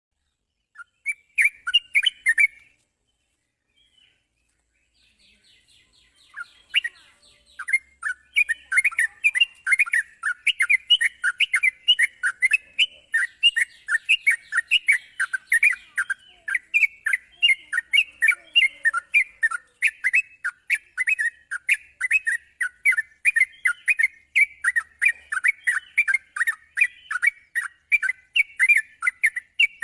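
Yellow-vented bulbul (trucukan) chirping in rapid, bubbly repeated notes. There is a short burst near the start, a few seconds' pause, then near-continuous chirping from about six seconds on, with faint high ticking above it.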